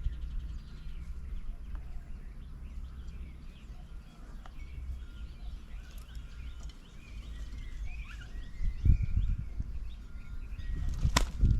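Faint chirps and short calls of small birds over a steady low rumble, with a couple of dull thumps and one sharp click near the end.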